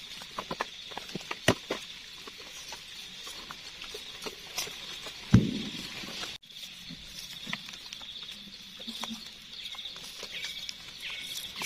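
Small knife cutting and prising button mushrooms out of the forest soil: soft scrapes, small clicks and the rustle of dry leaves and loose earth. There is a single low thump about five seconds in.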